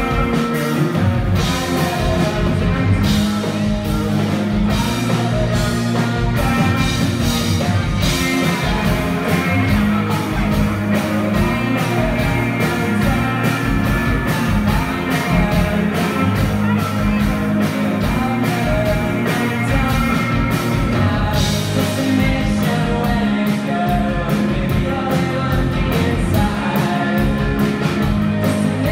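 Rock band playing live: electric guitars, keyboard and drums with a steady beat, and sung vocals.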